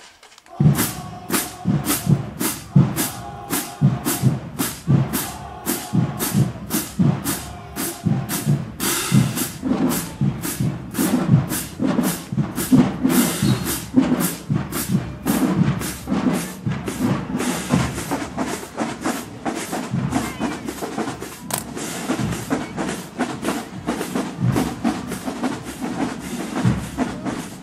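College marching band's drumline playing a marching cadence: drums struck on a steady beat of about two strokes a second.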